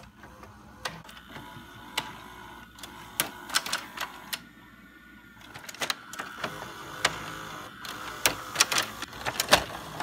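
VHS tape-deck sound effect: the machine's mechanism clicking and clattering irregularly over a faint steady hum, the clicks coming thicker in the second half.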